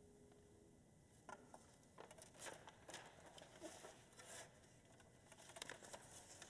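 Sheet music being handled on a music stand: faint scattered rustles and small clicks, starting about a second in, after the last ringing note of a classical guitar dies away.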